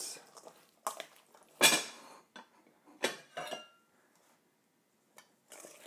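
Salad being tossed in a metal mixing bowl: a utensil clanks against the bowl's side a few times, the loudest strike about two seconds in, with a brief metallic ring near three seconds.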